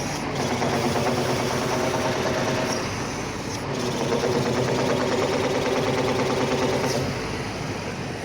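Hydraulic crane's system running with a steady vibrating drone and a rapid metallic tak-tak-tak clatter, easing briefly about three seconds in and again near the end. The mechanic traces this abnormal sound to the hydraulic pump, not the relief valve: a pump piston with its piston rings damaged or missing.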